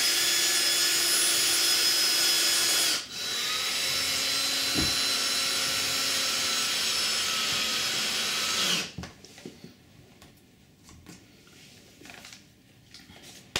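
Cordless drill-driver driving a self-drilling screw through a uPVC drip bar into a uPVC door. The motor runs steadily for about three seconds, stops briefly, then runs for about six seconds more before stopping. A few faint handling clicks follow.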